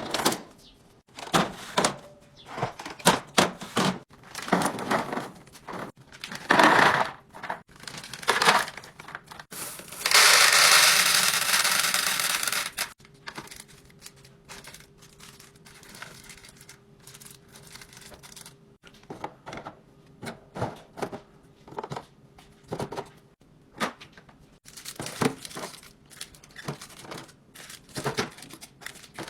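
Groceries and containers handled and set into a fridge: packaging crinkling and tearing, with short knocks and clicks as items are put down. About ten seconds in comes a louder continuous rush lasting about three seconds, and a faint steady hum runs under the quieter middle stretch.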